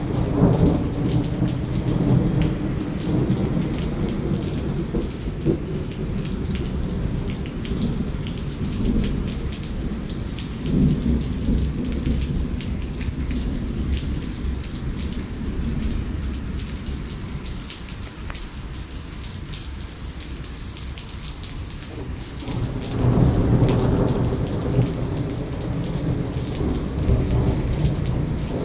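Heavy rain pouring down on wet asphalt, a steady hiss. Low rumbles swell up at the start, briefly about eleven seconds in, and again for a few seconds past the twenty-second mark.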